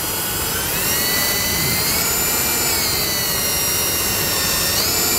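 Cordless drill with a 1/8-inch bit running, drilling out the center pin of a plastic push rivet. Its motor whine rises in pitch about a second in, dips around three seconds, and rises again near the end.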